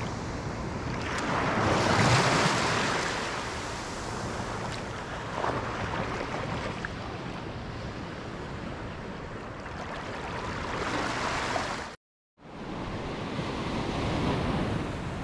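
Ocean surf washing up on a sandy beach, with wind on the microphone. The wash swells loudest about two seconds in and cuts out for a moment near the end.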